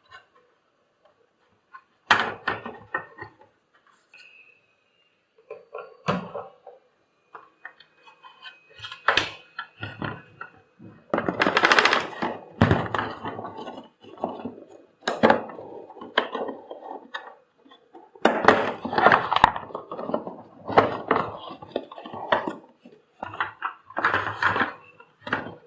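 Irregular clatter, scraping and thunks of hard plastic vacuum cleaner parts and tools being handled during repair, coming in bursts, with the densest stretches in the middle and near the end.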